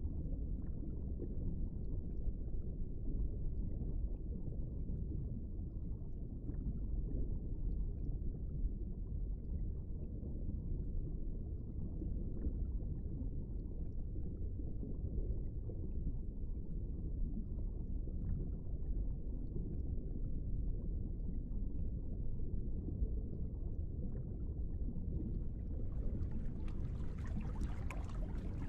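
Muffled underwater ambience sound effect: a steady, dull rumble of water with only low sounds coming through. Near the end a brighter, hissing water noise joins in.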